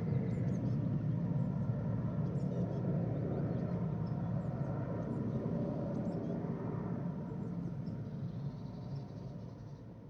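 Helicopter in flight, a dense steady rotor and engine noise that fades away over the last few seconds. Faint bird chirps sound above it.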